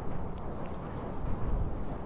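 River ambience: a steady low rumble with faint lapping and small splashes of water against the bridge piers.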